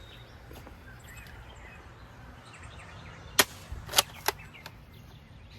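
Spring-loaded salt guns snapping: three sharp clicks within about a second, some three and a half seconds in, over faint birdsong.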